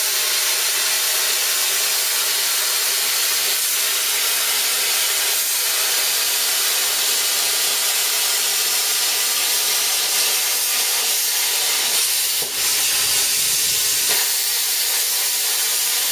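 Hand-held plasma cutter cutting through 3 mm steel sheet: a loud, steady hiss from the torch, faltering briefly about three-quarters of the way through.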